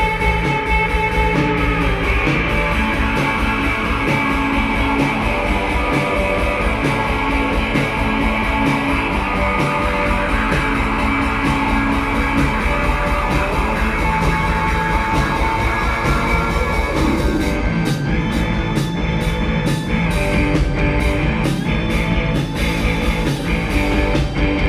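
A live band playing an instrumental rock passage: guitar and sustained keyboard-like tones over a drum kit, with sharper, regular drum strikes in the last several seconds.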